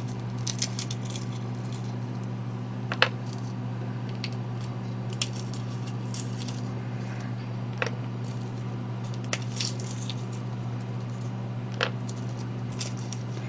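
Roasted peanuts being shelled by hand: scattered crackles of shells breaking in the fingers, with a few sharper cracks, over a steady low hum.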